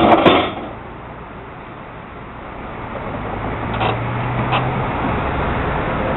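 Sounds at a streetcar stopped with its door open: a sharp knock at the start, then a quiet spell, then a brief low hum and two light clicks as the background street noise builds back up.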